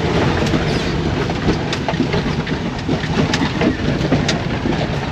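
Car driving over a rough road, heard from on board: steady road and engine noise with scattered rattles and knocks.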